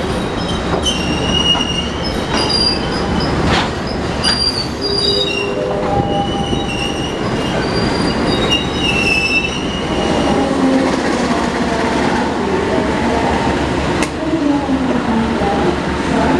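Passenger train running on the rails over a steady rumble, its wheels squealing in high, intermittent tones through roughly the first ten seconds.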